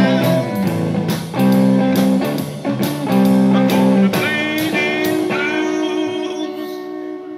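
Live blues-rock trio of electric guitar, bass guitar and drum kit playing hard, with steady drum hits under sustained guitar and bass notes. About five seconds in the drums stop and a held chord rings out and fades as the song ends.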